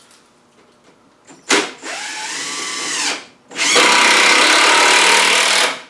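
Cordless drill driving screws through plywood into a log, in two runs. The first, about a second and a half in, follows a click, and the motor's pitch rises and then falls. The second, louder and steady, starts about halfway through and stops near the end.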